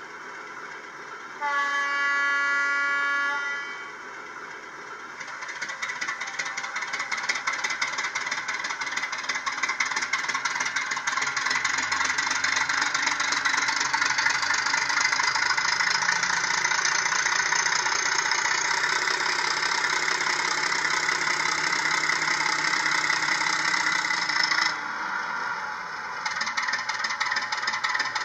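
Sound decoder of an HO-scale MTB model of a Czech Railways class 751 diesel locomotive, playing through the model's small speaker. A single horn blast lasts about two seconds, starting a second and a half in. Then the diesel engine sound revs up as the locomotive pulls away with a short freight and runs steadily loud, dropping back abruptly about 25 seconds in.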